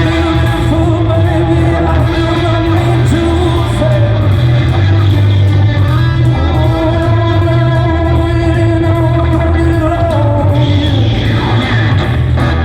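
Live rock band playing in a large hall: a singer holds long sustained notes over electric guitar and a heavy, steady bass.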